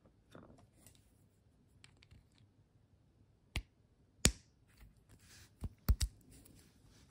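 Quiet handling of a small brass radiator valve spindle while new O-rings are fitted, with a handful of sharp clicks from about three and a half to six seconds in.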